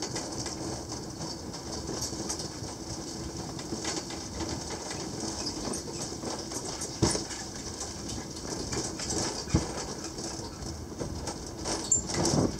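Gelmerbahn funicular car running down its steep track, shaking and creaking, with a faint steady low hum, many small rattling clicks and a few sharp knocks in the second half.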